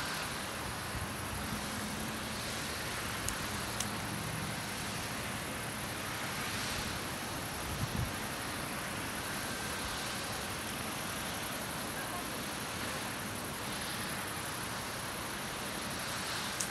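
Steady outdoor background noise: an even, constant hiss, with a faint low hum in the first few seconds.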